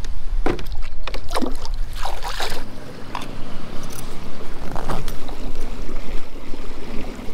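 Water splashing irregularly at the side of a kayak as a smallmouth bass is let go over the side, with low wind rumble on the microphone.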